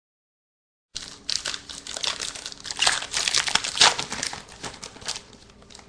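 Foil wrapper of a trading-card pack crinkling as it is torn open and handled, starting about a second in.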